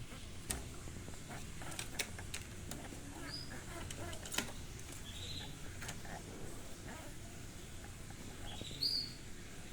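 Caged canaries giving a few short chirps, three separate high calls, among scattered light clicks and taps.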